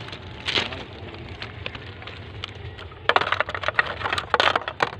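Footsteps crunching on railway ballast stones: a quick run of sharp crunches and clicks from about three seconds in to near the end, with a single click about half a second in.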